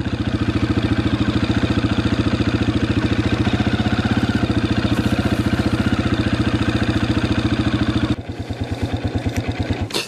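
Farm motorbike engine running steadily under throttle while riding, with a fast, even pulsing. About eight seconds in it eases off to slower, lighter pulses.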